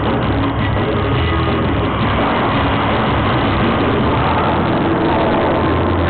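Loud light-show soundtrack played through large speakers: music mixed with a heavy, engine-like sound effect, steady throughout.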